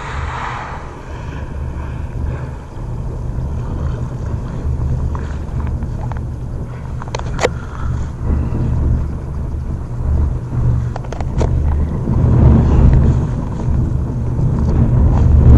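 A boat's engine running steadily, a low rumble that grows louder over the last few seconds, with two sharp clicks in the middle.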